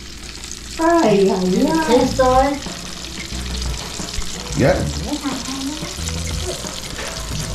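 French fries frying in hot oil in an electric deep fryer, a steady bubbling sizzle.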